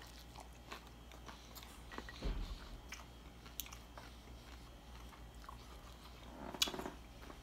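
A person biting and chewing a crisp fried corn tostada topped with shredded beef: faint crunching and mouth sounds, with a slightly louder knock about two seconds in.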